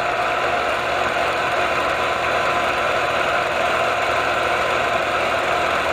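Film projector running with a steady mechanical whir.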